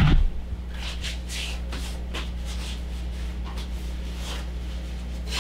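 Soft, scattered rustling and handling noises, a few short scuffs a second, over a steady low hum.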